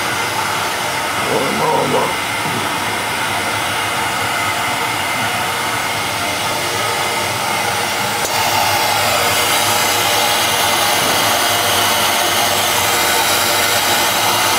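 Flux-recovery suction on a submerged-arc welding rig running steadily, drawing the unused welding powder back up. It gets a little louder about eight seconds in.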